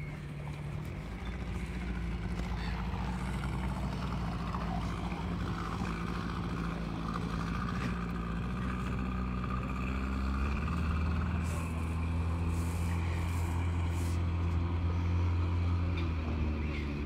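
A 25 hp outboard motor on a small skiff running steadily as the boat pulls away, getting louder about ten seconds in as the boat speeds up.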